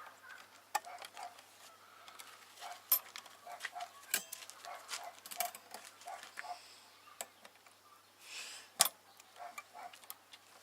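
Wood fire crackling: irregular sharp snaps and pops, with louder pops about four seconds in and just before nine seconds.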